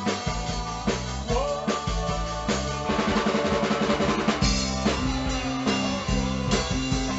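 A band playing a rock song, led by a full drum kit with kick and snare hits over sustained bass and guitar notes. About three seconds in there is a quick run of rapidly repeated notes.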